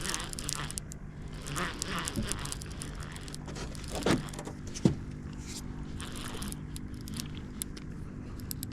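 Scattered clicks and scrapes of handling in a boat during a fish fight, with two sharper knocks about four and five seconds in, over a steady low hum.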